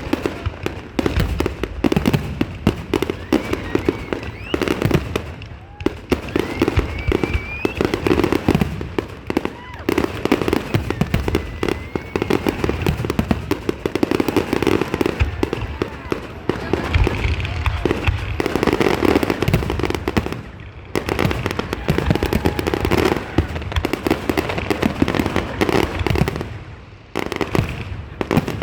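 Aerial fireworks display going off without a break: a dense run of bangs and crackling bursts, with a few short lulls.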